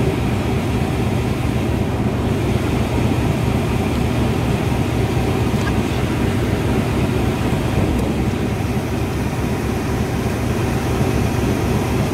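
Diesel locomotive of the V-Train (Baekdudaegan canyon train) idling while standing: a steady low engine hum that does not rise or fall.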